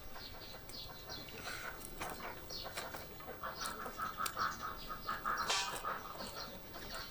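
A domestic animal calling: a quick run of short, repeated calls that is loudest in the middle.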